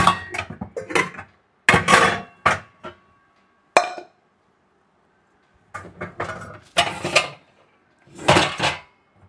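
Kitchen pots and vessels clattering and clanking in several quick bursts as they are rummaged through in search of a cooking pot. There is a pause of about a second and a half in the middle.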